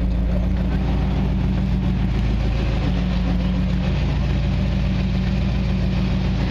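Supercharged 2002 Corvette Z06's LS6 V8 idling steadily.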